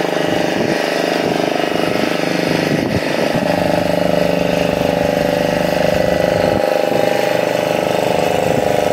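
An engine running steadily at idle, a continuous even hum with no break.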